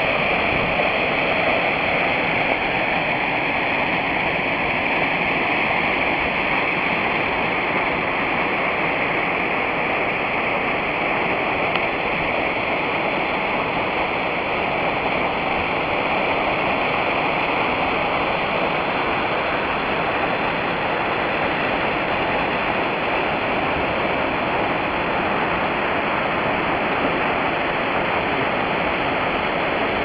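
Waterfall pouring onto rocks, a steady, unbroken rush of water.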